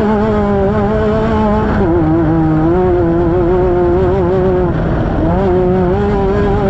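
Off-road race vehicle's engine running hard under load, heard from on board, its pitch wavering as the throttle changes. The pitch drops about two seconds in and dips and climbs again near five seconds, over a steady rush of wind and rattle.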